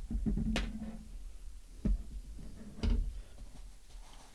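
Handling noise: four sharp clicks and light knocks spread over a few seconds, with a low rumble in the first second.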